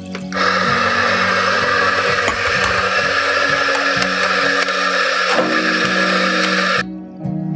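Electric coffee grinder running for about six seconds, starting and stopping abruptly, over soft background music.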